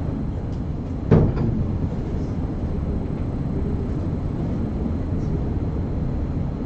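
Steady low rumbling background noise, with one sharp knock about a second in.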